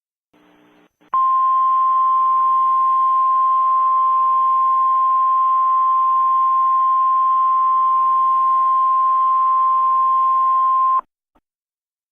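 Emergency alert warning tone: a single steady high tone, the NOAA Weather Radio 1050 Hz warning alarm, comes in about a second in and is held for about ten seconds over faint static before cutting off sharply.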